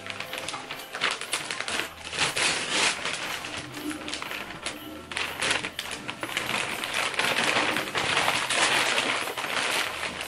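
Gift-wrapping paper being torn off a large cardboard box and crumpled, a dense run of ripping and rustling.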